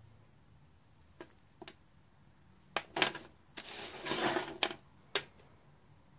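A few light clicks and knocks, with a short crunching rustle about two-thirds of the way through, as of small dry, hard things being handled.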